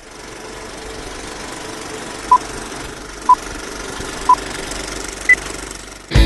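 A steady old-film-projector running noise under four short countdown beeps about a second apart, three at one pitch and the last one higher. Music comes in at the very end.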